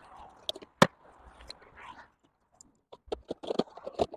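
A scatter of sharp clicks and knocks, with a short near-silent gap in the middle, from handling the cordless lawn mower while its electric motor is stopped.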